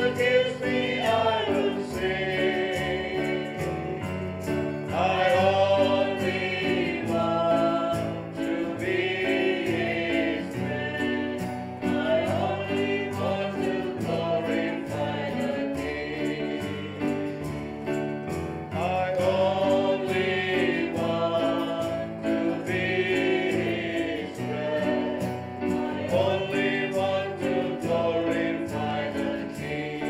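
A choir singing a gospel worship song in long phrases over steadily held low notes.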